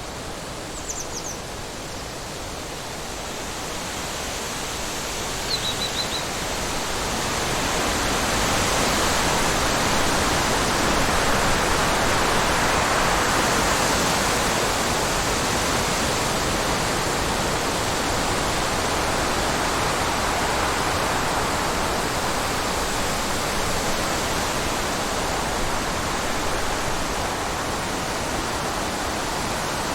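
Wind blowing in a steady rushing hiss, swelling over the first ten seconds or so and then holding.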